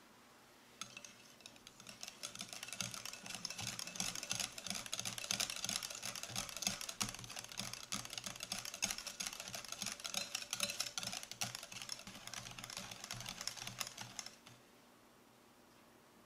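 Wire whisk beating a thick cream cheese and yogurt mixture in a glass bowl: a fast run of clicks and scraping as the wires strike the glass. It starts about a second in and stops near the end.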